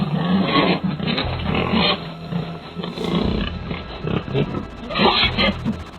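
Feral hogs grunting and squealing, several rough calls overlapping in an uneven run.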